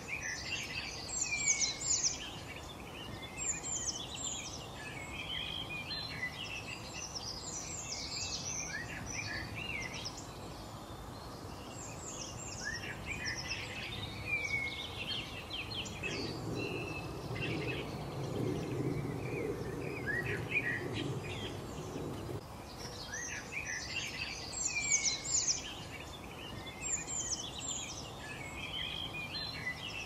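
Many small birds chirping and twittering in a busy chorus of short, quick notes, over a steady background hiss. A low rumble joins in around the middle and stops after about six seconds.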